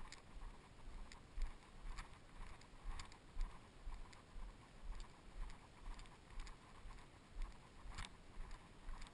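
Footsteps of someone walking along a packed gravel trail, about two steps a second, each step a soft low thump with a light crunch.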